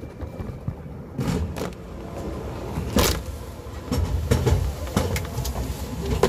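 Airport-style security X-ray scanner conveyor carrying a plastic tray on its rollers, with a steady low rumble and several sharp knocks of the tray, the loudest about three seconds in.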